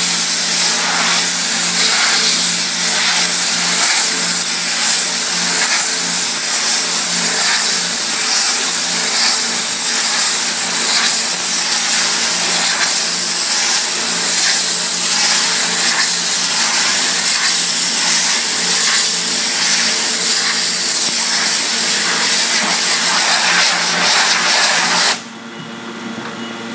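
Pressure washer blasting the soaked emulsion out of a screen-printing screen's mesh: a loud, steady hiss of high-pressure water spray over the washer's pump hum. It cuts off suddenly near the end when the trigger is released.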